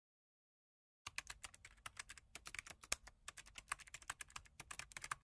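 Fast typing on a computer keyboard: a quick, uneven run of key clicks that starts about a second in and stops suddenly near the end.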